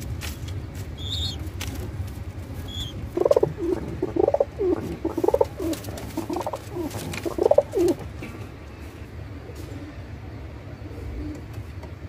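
Domestic pigeon cooing: a run of rising and falling coos starting about three seconds in and lasting some five seconds, over a low steady hum. A few light clicks and two short high chirps come before the coos.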